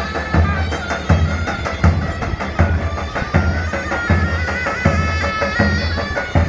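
Turkish davul-zurna folk music: a big davul bass drum pounds deep, regular strokes under a shrill zurna (double-reed shawm) playing a wavering melody.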